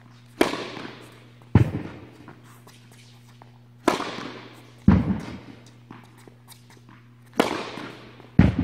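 Tennis balls struck by rackets: six sharp pops in three pairs about a second apart, each ringing out in the echo of an indoor tennis hall. A low steady hum runs underneath.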